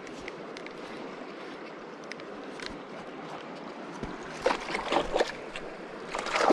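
Steady rush of river water, then from about four and a half seconds in irregular splashing at the surface as a hooked cutthroat trout is fought and brought in.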